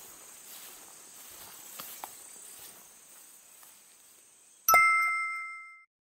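Insects chirring steadily in grassy woodland, with a few soft footsteps through the grass. About three-quarters of the way through, a single bright chime of a transition sound effect strikes and rings out, fading over about a second.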